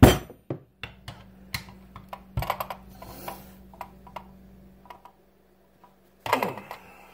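Metal tool work on a Grundfos circulator pump's motor head: a sharp metal knock, then irregular small clicks and scrapes as a screwdriver is pressed and worked against the rotor shaft and cartridge to drive them out. A brief louder scrape comes about six seconds in.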